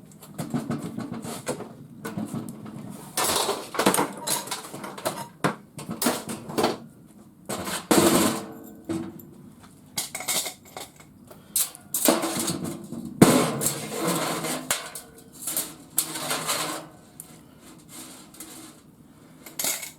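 Metal parts of a garage door opener clanking and knocking as it is taken apart and the pieces are handled and tossed aside for scrap. The knocks are irregular, and some ring briefly.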